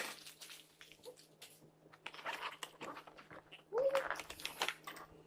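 Scattered clicks and rustles of items and packaging being handled, over a faint steady hum. About four seconds in there is one short yelp-like vocal sound.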